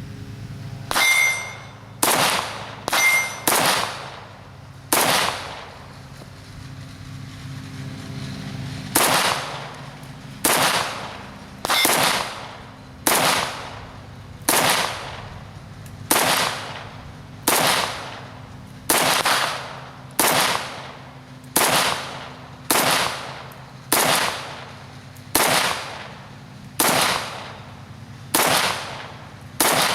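Waffen Werks/DDI AK-74 rifle firing 5.45×39 7N6 ammunition in sustained semi-automatic fire: single shots about one a second in a steady string, with a pause of about four seconds after the first six. A metallic ring follows the first two shots.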